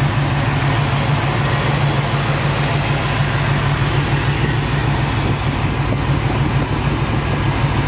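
A 1969 Camaro SS's 427 big-block V8 idling steadily, with its Vintage Air air conditioning switched on.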